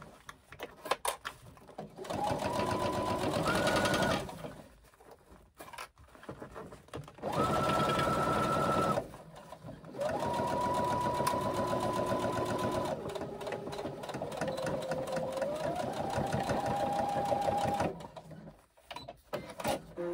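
Brother electric sewing machine stitching a seam in three runs with short pauses between them. Its motor pitch climbs each time it speeds up.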